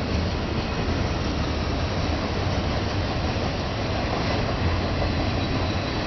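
Intermodal freight train rolling past, a steady rumbling noise with no horn sounding.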